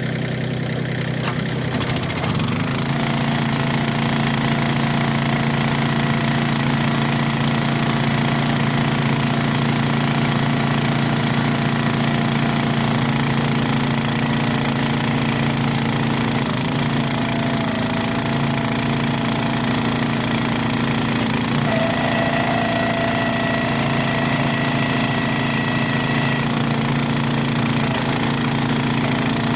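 Engine running steadily with a knocking, rattling quality; it picks up about two seconds in and then holds one speed.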